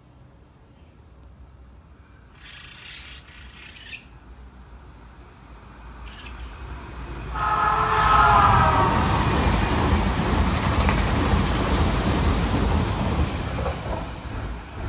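Odakyu VSE Romancecar electric train sounding its whistle in one blast lasting about two seconds as it arrives, about seven seconds in, then the loud rumble and rush of the train running past, fading near the end.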